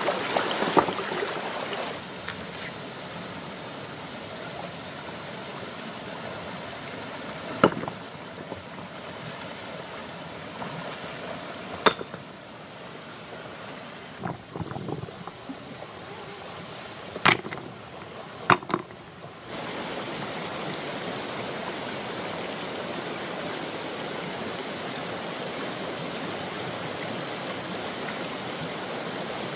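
Flowing water, heard as a continuous rushing, with about five sharp knocks scattered through it. The water noise drops about two seconds in and comes back louder near two-thirds of the way through.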